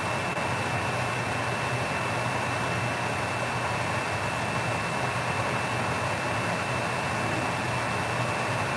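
Steady rushing hiss with a low hum under it and a faint, high, steady whine: kitchen noise while a lidded pot boils hard on the stove.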